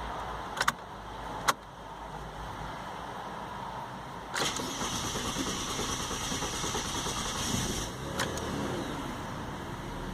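Ford Falcon factory-LPG engine cold-cranked: a few clicks, then about four seconds in the starter cranks with a harsh grinding noise for about three and a half seconds before the engine catches and runs. The grinding is an intermittent fault that shows only on cold cranking.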